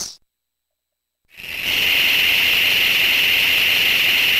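Circuit-bent Black & Decker toy chainsaw's electronic motor sound through its small speaker. A sound cuts off right at the start, then after about a second of silence a steady hissing buzz comes on and holds one pitch.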